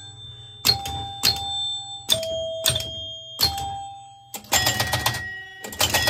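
1970 Gottlieb Batter Up electromechanical pinball machine ringing its scoring chimes as points are scored. Single ringing strikes at different pitches come about every half second at first, then two quick rapid runs of strikes near the end.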